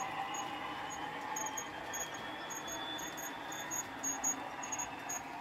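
OO gauge model diesel locomotive running along the track hauling a rake of freight wagons: a faint motor whine under rapid light clicking of the wheels over the rail joints.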